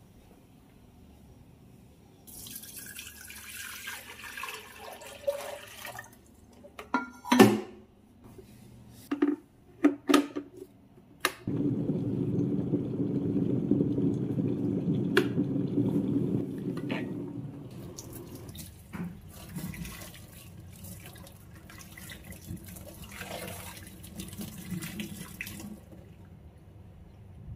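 A cloth wiping a stone countertop, then several sharp clicks and knocks of things being handled. An electric kettle comes in suddenly about eleven seconds in, heating water with a steady low rush that is the loudest sound, and fades after about five seconds.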